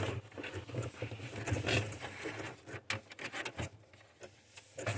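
Hands fumbling and rummaging for a small screw, with rustling and a few small sharp clicks and knocks over a low steady hum.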